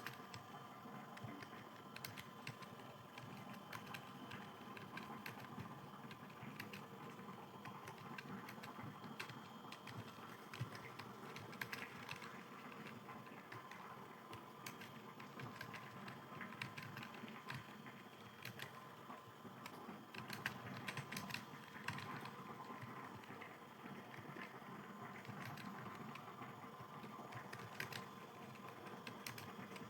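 Computer keyboard typing: a faint, quick, irregular stream of key clicks.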